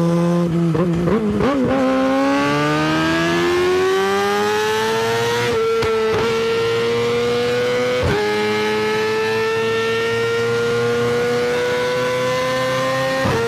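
Motorcycle engine blipped a few times, then accelerating hard with the engine note climbing steadily and dropping at three upshifts, about five, eight and thirteen seconds in.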